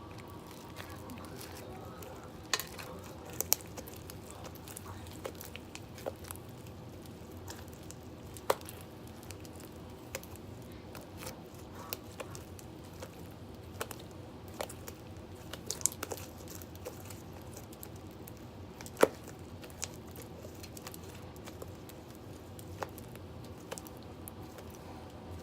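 Slime being mixed: scattered small clicks and squishes over a steady low room hum.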